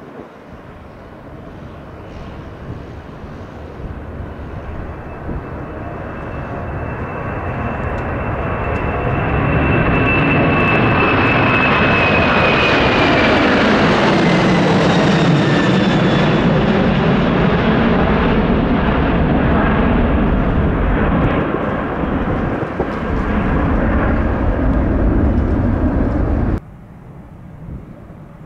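Boeing 747's four jet engines at takeoff power as the jet climbs out and passes by: the noise builds over several seconds, a high engine whine falls in pitch as it goes past, and the sound cuts off suddenly near the end.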